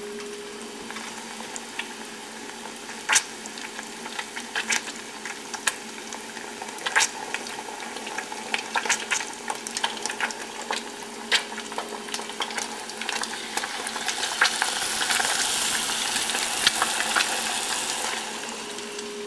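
Batter-coated kheer balls (pitha) deep-frying in a saucepan of hot oil: a steady sizzle with scattered crackles and pops, growing louder about three-quarters of the way through.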